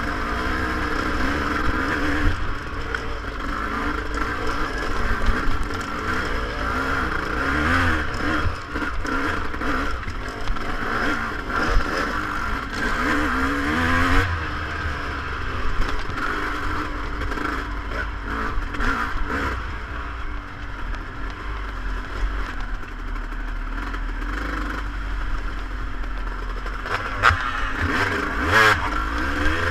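Off-road motorcycle engine revving up and down, heard close from the rider's own bike, with the clatter and knocks of the bike riding over a rough, stony track. Near the end come a few harder hits.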